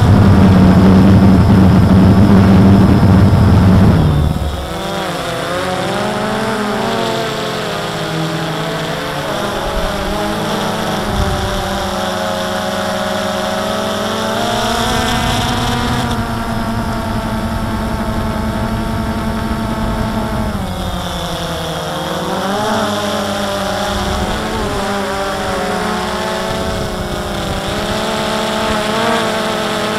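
DJI Phantom 2 quadcopter's electric motors and propellers whirring in flight, recorded by the camera on board, with a steady drone whose pitch wavers up and down as the rotor speeds change. Heavy wind rumble buffets the microphone for about the first four seconds.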